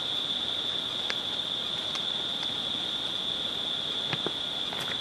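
Steady chorus of insects, one unbroken high-pitched drone, with a few faint clicks.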